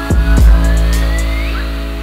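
Electronic background music: a held chord with two deep bass hits in the first half second, and a thin tone gliding slowly upward.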